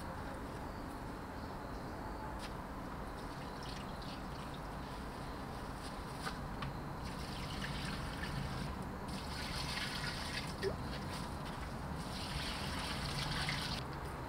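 Water poured from a collapsible bucket onto the soil of potted plants, in three spells of trickling and splashing in the second half.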